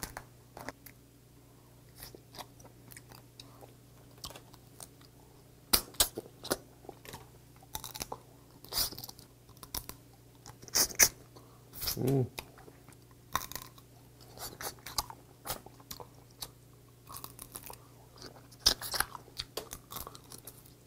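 Eating steamed red snow crab: shell and legs crack and snap now and then, with chewing in between. There is a brief hummed murmur about twelve seconds in.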